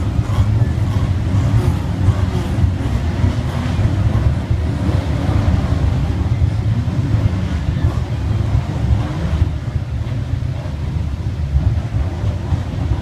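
Engines of a field of saloon stock cars running round the oval track, heard as a steady low drone mixed with wind buffeting the microphone.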